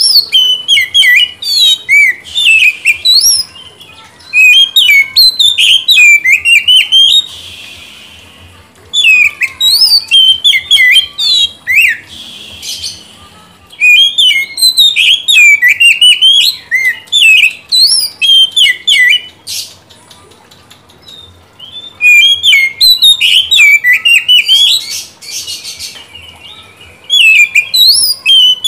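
Oriental magpie-robin singing: loud bursts of fast, varied whistles and chirps lasting a few seconds each, broken by short pauses, with a few harsh rasping notes between phrases.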